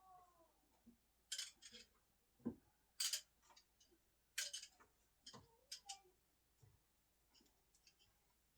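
A series of sharp, irregular metallic clicks and knocks from steel screwdrivers used as throwing implements, the loudest about one, three and four and a half seconds in, with near silence between them.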